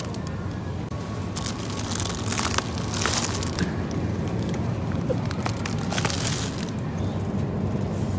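Plastic food packaging crinkling and rustling in the hand, in two bursts of crackle, over a steady low background hum.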